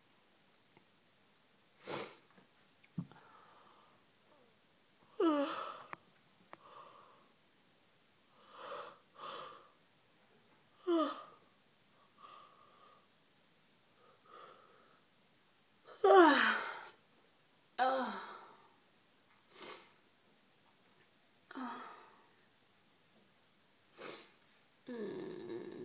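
A woman yawning again and again: several drawn-out voiced yawns whose pitch slides downward, the loudest about two-thirds of the way through, between short sharp breaths in and out.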